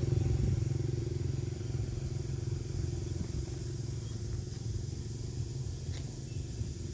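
Low, steady engine rumble of a motor vehicle nearby, slowly fading, with a few faint clicks.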